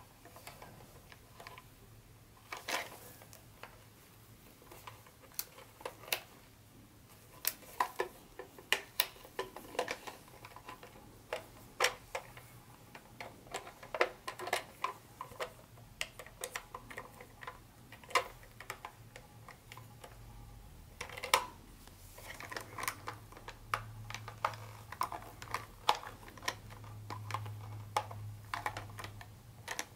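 Irregular clicks and taps of a plastic toy locomotive being handled with gloved hands, its shell and wheel trucks knocking and rattling. A low steady hum comes up in the last third.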